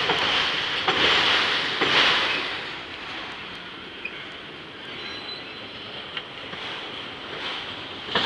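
CSX autorack freight cars rolling slowly past on the rails as the train slows toward a stop, a steady rumble with a few sharp clicks. The noise drops off noticeably about two and a half seconds in.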